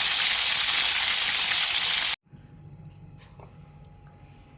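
A steady hiss, like sizzling oil or running water, that cuts off abruptly about two seconds in, leaving quiet room tone with a faint low hum.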